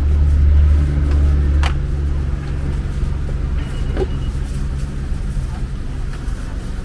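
A motor running with a steady low rumble, loudest in the first second or so and easing a little, with a sharp click about two seconds in and a brief high beep near the middle.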